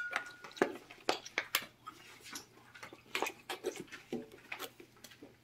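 Scattered light clicks and knocks, a few a second, of dishes and food containers being handled.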